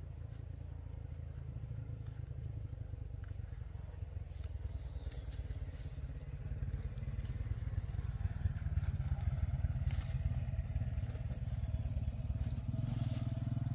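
A small engine running steadily, getting gradually louder, with a few light knocks along the way.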